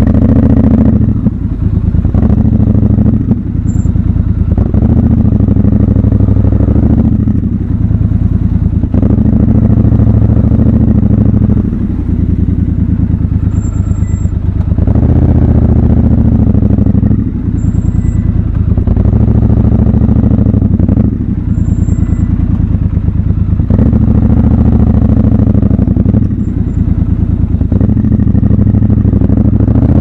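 Triumph Scrambler 1200 XC's 1200 cc parallel-twin engine running at low revs. The throttle is opened and rolled off again every few seconds as the motorcycle creeps forward at low speed.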